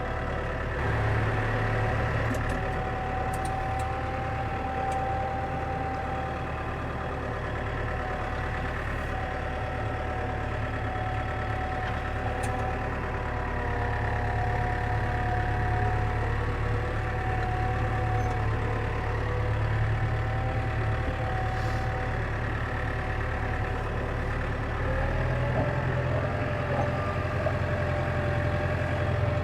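Farm tractor engine running steadily at low speed while driving in four-wheel drive across wet ground, the engine still warming up. Its note shifts about 25 seconds in.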